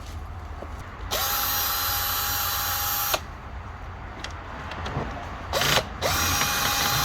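Cordless power driver with a 7mm socket, spinning out the 7mm screws of a dashboard trim panel in two runs of about two seconds each, the motor holding one steady pitch, with a brief burst between them.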